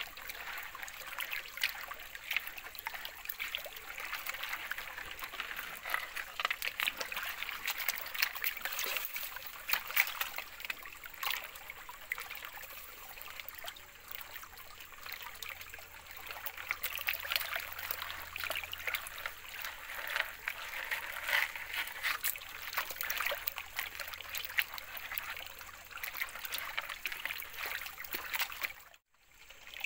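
Water sloshing and trickling as a black plastic gold pan is swirled and dipped in a shallow muddy creek, washing sand and gravel out over its riffles, with many small crackles. The sound drops out for a moment near the end.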